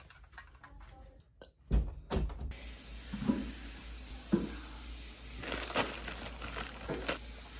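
A plastic bag of food being handled, crinkling in short scattered rustles and clicks, after two sharp knocks; a steady hiss starts suddenly about two and a half seconds in.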